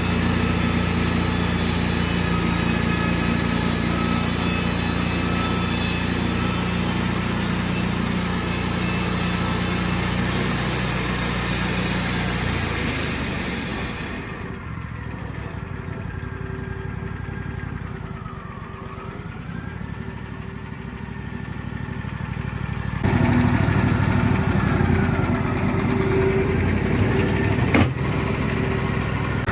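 Wood-Mizer portable sawmill running steadily on its engine. Its sound changes partway through: a dense hiss at first, then a quieter stretch with a short falling-and-rising whine, then louder again, with one sharp click near the end.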